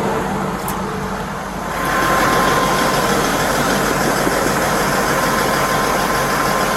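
Steady engine and road noise from vehicles at a roadside traffic stop, with a faint steady whine, getting a little louder about two seconds in.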